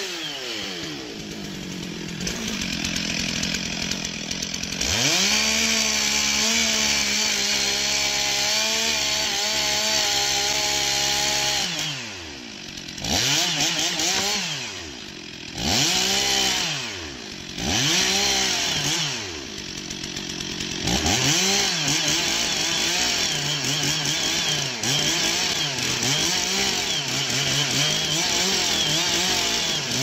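Two-stroke chainsaw cutting into the base of a large tree trunk. It runs slower for the first few seconds, holds a high steady note in the cut for about seven seconds, and is revved up and down several times. It then cuts again with a wavering pitch.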